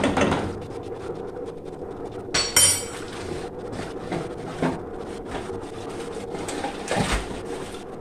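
Kitchen utensils being handled and set down: a sharp metallic clink about two and a half seconds in and a few light knocks, over a steady low hiss.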